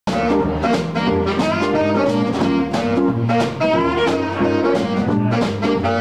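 Live band playing an upbeat jazzy tune: a saxophone carries the melody over drums, bass and guitar, with a steady beat.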